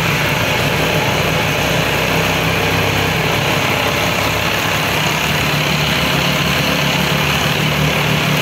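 Benelli TNT 899's inline three-cylinder engine idling steadily.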